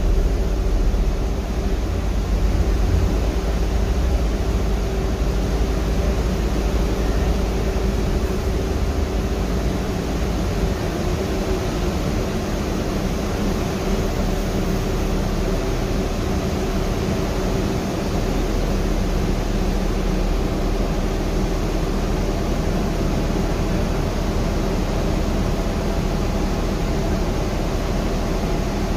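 Cabin noise inside a 2014 Gillig 35-foot hybrid trolley-replica bus under way: a steady low drone from the drivetrain with an even hiss of road and air noise.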